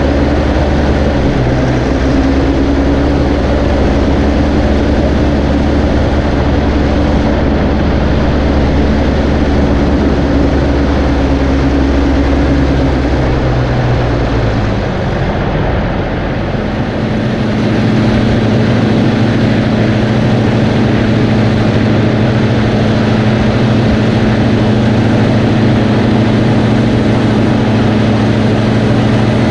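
Tractor engine running steadily. About halfway through its level dips briefly and its note changes: the deep low rumble drops away and a different steady note takes over.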